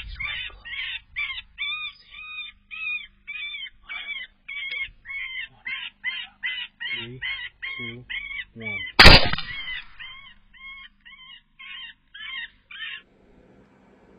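Electronic predator call playing a repeated distress cry, about two calls a second. A single rifle shot rings out about nine seconds in, the loudest sound, and the calling carries on after it, then stops about a second before the end.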